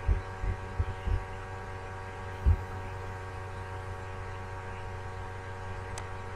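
Steady electrical hum with several steady pitches layered in it. Several dull low thumps cut through it in the first second or so, and a louder one comes about two and a half seconds in.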